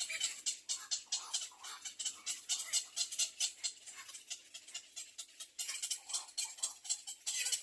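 Baby bird chirping in the nest, high-pitched calls repeated rapidly, about four to five a second, without a break.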